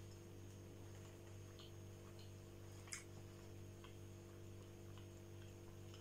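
Near silence: room tone with a low steady hum and a few faint clicks, the sharpest one about three seconds in.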